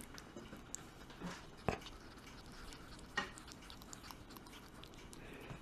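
Faint rustling and small clicks close to the microphone as a white ferret is held and nuzzled against a person's face, with a few sharper clicks scattered through, the strongest a little under two seconds in.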